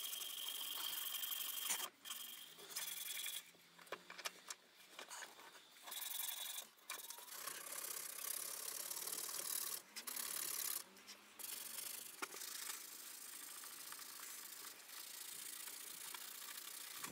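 Red oak knife handle being hand-sanded: a strip of abrasive rubbed back and forth around it gives a hissing rasp that comes in stretches broken by short pauses.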